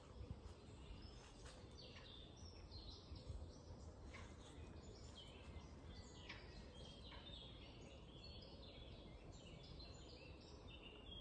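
Faint birdsong: many short, quick chirps and twitters, several falling in pitch, over a steady low rumble of background noise.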